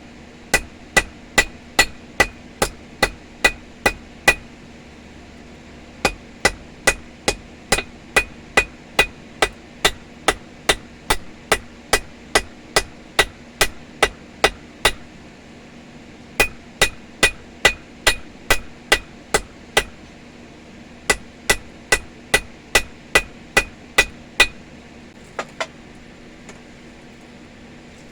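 Blacksmith's hammer striking hot steel on an anvil in steady runs of about two to three blows a second, each blow with a short metallic ring. There are four runs with brief pauses between them, while the center-punch end of a chipping hammer is being rounded and tapered.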